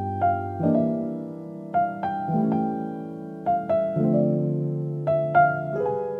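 Background music: a soft piano playing slow chords, with a new chord about every second and a half and a simple melody of single notes above.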